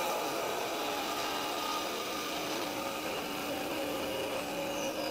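Small Hi-Tech Diamond lapidary trim saw running, its diamond blade cutting through a rock: a steady motor hum with a grinding hiss.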